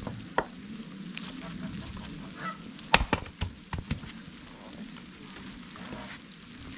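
Split firewood logs knocking together as they are pulled from a stacked woodpile: a few sharp wooden clacks, loudest in a cluster about three seconds in, over a steady patter of rain.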